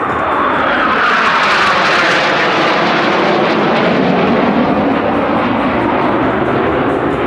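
Jet noise from six Northrop F-5E Tiger II fighters flying past in close formation, each powered by two J85 turbojets. The sound is loud and steady, swelling about a second in and holding.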